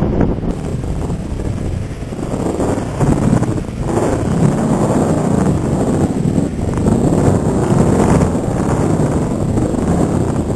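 Strong wind buffeting the microphone, a heavy rumbling that rises and falls, over surf breaking on the beach.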